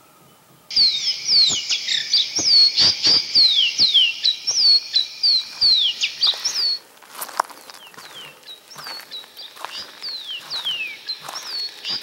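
Birds calling in a rapid series of short, high, descending whistled notes, several a second, starting suddenly about a second in, dropping off sharply a little past halfway and coming back quieter, with scattered clicks among them.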